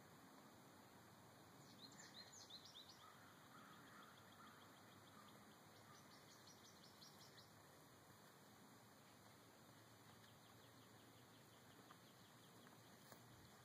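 Near silence with faint birdsong: quick series of high chirps about two seconds in and again around six to seven seconds, over a faint steady hiss.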